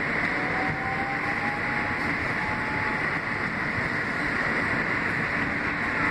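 Steady rumble and hiss of a moving Kawasaki R160B subway car with Siemens propulsion, heard from inside the car. A faint thin whine rises slightly from about one to three seconds in.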